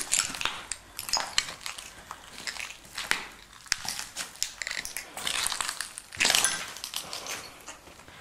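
Footsteps crunching and clinking over a floor littered with broken ceramic shards and rubble, as an uneven run of crunches with the loudest stretch about six seconds in.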